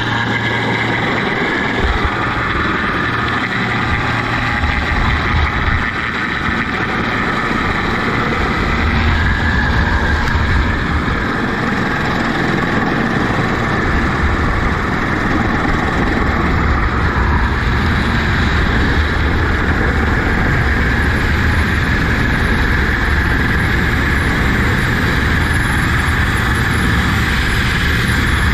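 Hovering rescue helicopter's rotor and engines running steadily and loudly, heard from close beneath it on the hoist cable.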